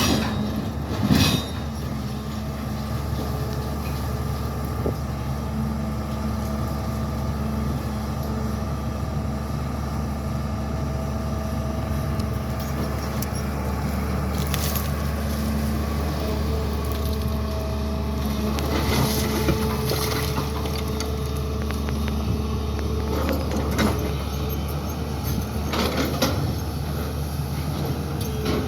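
SANY excavator's diesel engine running steadily, its note shifting a little now and then, with a few sharp clanks scattered through, most in the second half.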